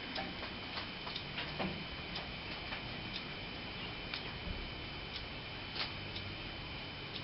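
Irregular sharp clicks, one or two a second, from a benchtop oscilloscope's dials and switches being worked, over a steady hiss with a faint high whine from the running unit.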